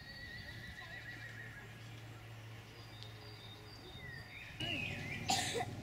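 A Przewalski's horse whinnying, a wavering high call that comes strongest about four and a half seconds in. A brief loud knock or rustle follows near the end.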